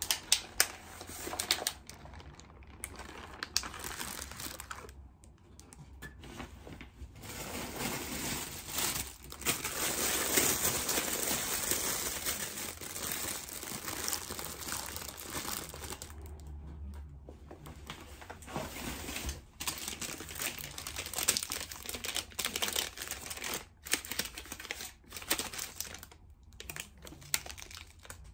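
Plastic grocery bags and packaging crinkling as groceries are handled and unpacked, with small knocks and clicks of items being set down; the crinkling is heaviest and most continuous through the middle.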